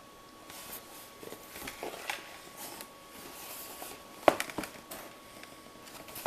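A cardboard model kit box being handled and opened: light rustling and soft taps, with a sharp knock about four seconds in and a smaller one just after.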